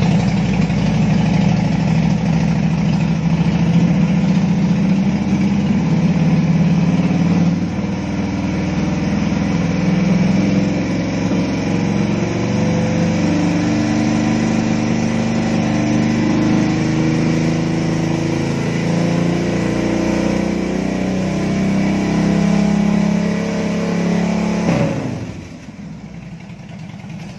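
Big cruiser motorcycle with a modified exhaust running loudly at a steady, raised engine speed for a stationary exhaust-noise test, then falling back toward idle about 25 seconds in.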